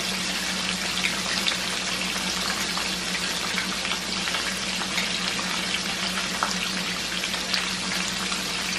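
Breaded chicken breasts frying in oil: a steady sizzle with scattered small pops and crackles, over a steady low hum.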